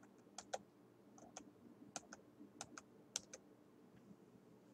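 Faint, irregular clicking of computer keys, about a dozen quick clicks, some in close pairs.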